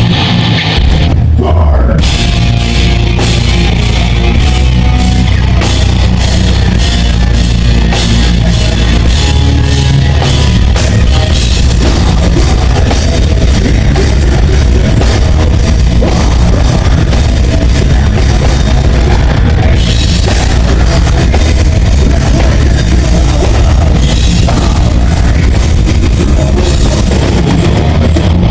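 A heavy metal band playing at full volume: a drum kit with rapid, regular hits over heavy distorted guitars and bass.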